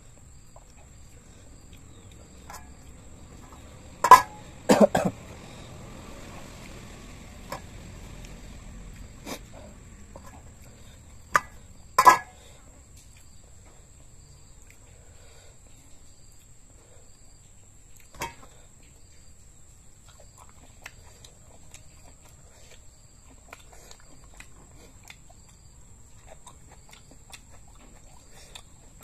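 Eating sounds of a person chewing raw beef: a handful of sharp mouth clicks and smacks, loudest around four to five seconds in and again near twelve seconds, with quiet chewing between, over a faint steady high whine.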